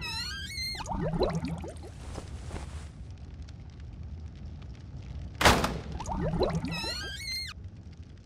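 Cartoon sound effects: a quick run of rising squeaky whistle tones with lower warbling squeaks under them. About five and a half seconds in comes a loud hit, followed by the same rising run.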